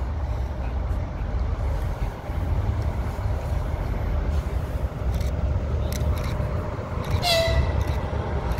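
EP1 electric locomotive approaching with a steady low rumble, and one short horn blast about seven seconds in.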